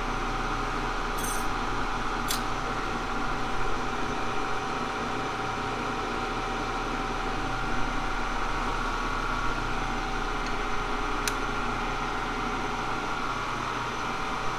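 Steady hum of a running machine with a faint whine, and a few sharp metallic clinks, two or three times, as a steel wrench and clamp are handled on the fixture plate.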